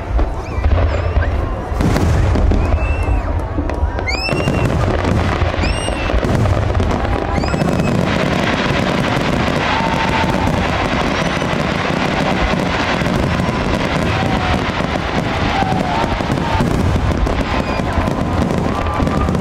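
Fireworks display: aerial shells bursting one after another, with several whistling shells rising in pitch in the first half, then a dense crackling barrage from about eight seconds in.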